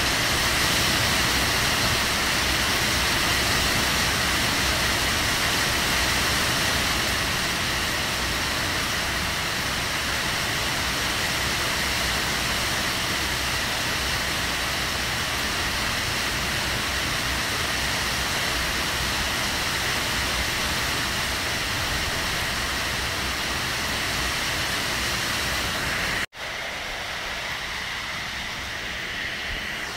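Heavy rain falling steadily, an even hiss. Near the end it cuts out for an instant, then comes back a little softer.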